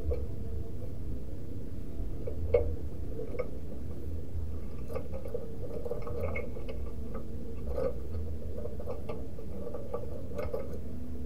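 Zebra dove (perkutut) cooing in short clusters of quick, low notes, over a steady low background rumble.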